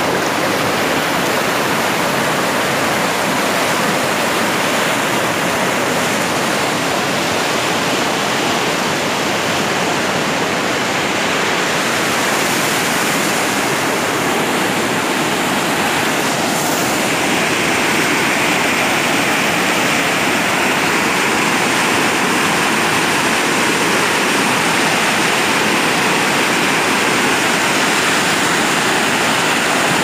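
Muddy, flood-swollen mountain river rapids rushing and splashing right beside the microphone: loud, steady white water with no let-up.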